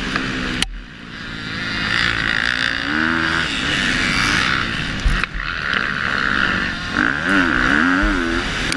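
KTM 250 SX-F four-stroke motocross engine revving up and down hard under acceleration and gear changes, heard from on the bike. The sound breaks off sharply about half a second in and again about five seconds in.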